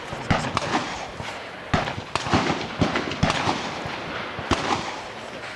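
Gunfire at an outdoor shooting range: about ten sharp shots at irregular intervals, some close together.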